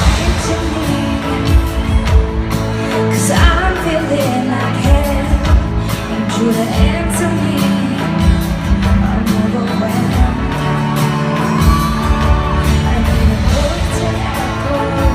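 Live pop ballad played by a full band with drums, and a woman singing the lead melody, recorded in a large hall.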